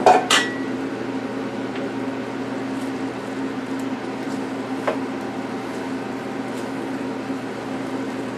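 A steady hum, with a short clink about five seconds in.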